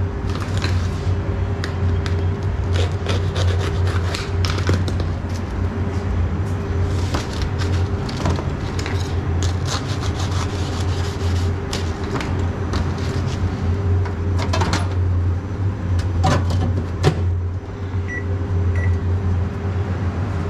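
Steady low hum of kitchen equipment, with scattered clicks and knocks of a knife cutting a long sandwich loaf on a stainless steel counter; one sharper knock about three-quarters through.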